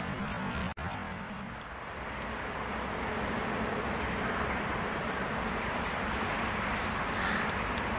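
Steady traffic noise, an even rumble and hiss with no single event standing out. Just under a second in, a brief dropout at a cut ends a fast run of high ticks.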